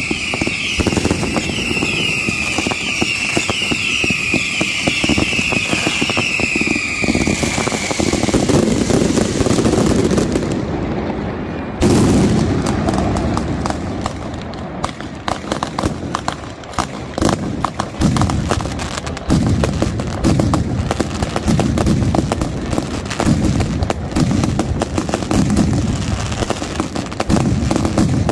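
Night mascletà fireworks. For the first several seconds there are many overlapping falling whistles over continuous crackling. Then come dense, rapid-fire firecracker bangs in repeated waves.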